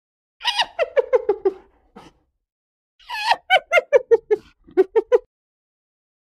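Hyena giggling: two bursts of rapid, high, staccato 'laughing' notes, each falling in pitch. The second burst, about three seconds in, is the longer.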